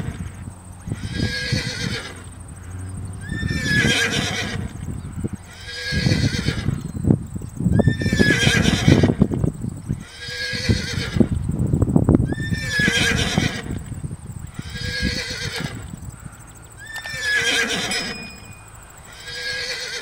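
Horse whinnying over and over, one call about every two seconds, with sharp knocks of hooves between the calls around the middle.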